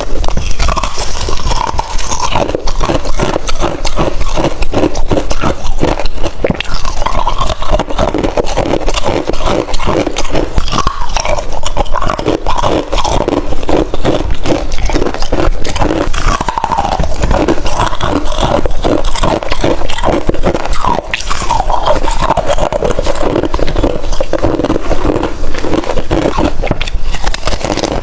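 Freezer frost edges being bitten and crunched, close to the microphone: a continuous run of loud, irregular crisp crunches.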